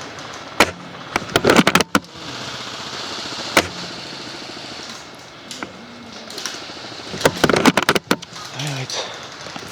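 Airsoft guns firing: a series of sharp clicks and snaps, with single shots under a second in and about three and a half seconds in, and two quick clusters of shots about a second and a half in and again near the end.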